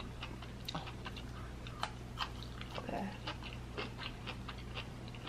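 Close-miked mouth sounds of a person chewing soft food, crab-stuffed salmon: a string of small, wet clicks and smacks.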